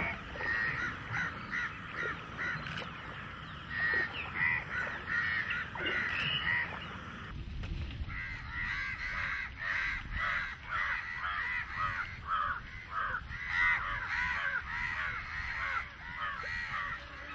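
A flock of crows cawing, many calls overlapping, over a low rumble.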